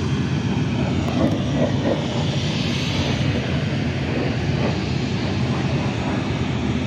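Airplane engine running steadily, a constant drone with a low hum.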